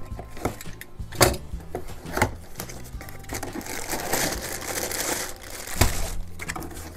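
Hands opening a cardboard toy box and pulling out a plastic bag of plastic gear pieces: cardboard flap handling and knocks, with the plastic packaging crinkling. Sharp knocks come about a second in and again near the end, the later one the loudest.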